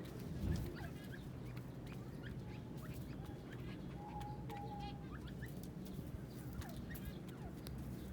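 Teetar (francolins) giving short, scattered chirping calls, some falling in pitch, with one brief held note about four seconds in, over a steady low hum. A dull thump sounds about half a second in.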